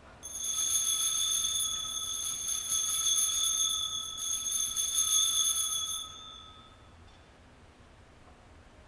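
Altar bells rung at the elevation of the chalice: a bright, shimmering ring shaken for about six seconds, then dying away within a second.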